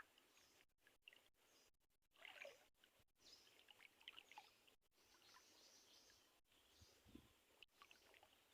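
Near silence: faint mangrove forest ambience with scattered faint bird chirps and a single soft low thump about seven seconds in.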